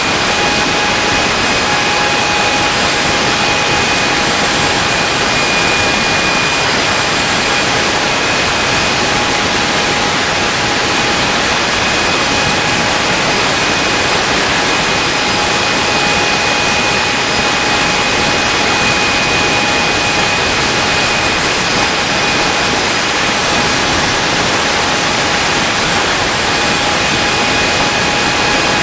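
Handmade turbojet engine with a 135 mm compressor running at a steady speed on a test stand: a loud, even rush of exhaust with several steady high whines from the spinning compressor and turbine.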